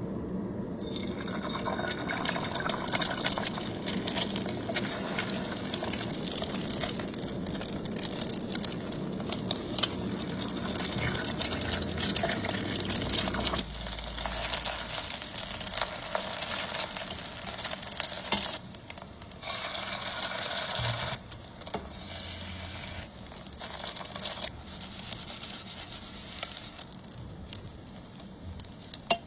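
Stovetop cooking of instant noodles: sizzling and stirring in a pot, with small clicks of utensils against the pot. The lower rumbling drops out about halfway through, leaving the sizzle coming in on-and-off bursts.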